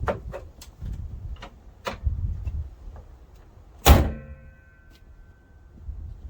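Small metal clinks and knocks of parts being handled, then about four seconds in one loud slam of a vehicle body panel shutting, ringing briefly afterwards. Wind rumbles on the microphone underneath.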